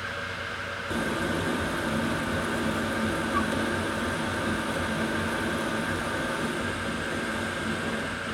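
Metal lathe running, its tool cutting a spinning aluminum pulley blank: a steady machine hum with the hiss of the cut, growing louder about a second in and easing off near the end.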